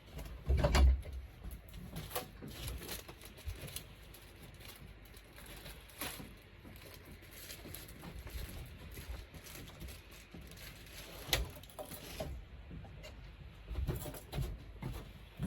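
Scattered knocks, clicks and clatter of hands and tools at work, with a heavy low thump about a second in and sharper knocks about eleven and fourteen seconds in.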